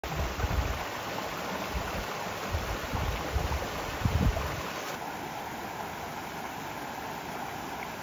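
Steady rush of river water flowing by a waterfall. For the first four and a half seconds, gusts of wind buffet the microphone with deep rumbling thumps, then stop.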